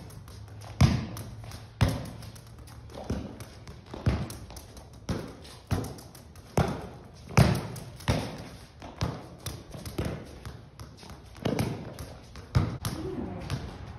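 Soccer ball kicked back and forth in one-touch passes across a concrete floor: a series of sharp kicks, roughly one a second.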